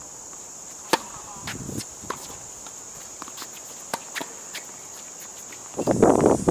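Tennis ball struck by racquets during a rally: a sharp pop of the serve about a second in, a fainter return about two seconds in, and another hit near four seconds. A steady high insect buzz runs underneath. Just before the end a much louder, close-up stretch of knocking and rustling noise starts.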